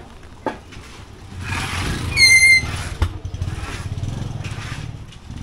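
A motor vehicle passing close by, its engine rumbling, with a short high-pitched squeal about two seconds in that is the loudest moment, and a single knock just after.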